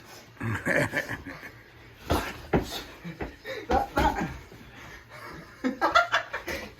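People laughing and chuckling in short bursts, with a few sharp smacks mixed in.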